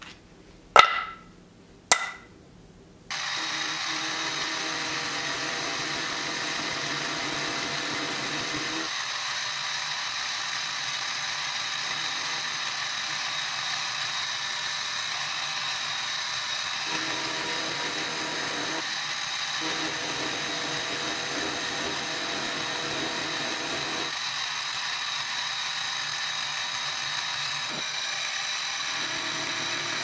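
Two sharp knocks about a second apart, then from about three seconds in a milling machine runs steadily, its end mill cutting into a steel block, with a steady high whine over the motor noise.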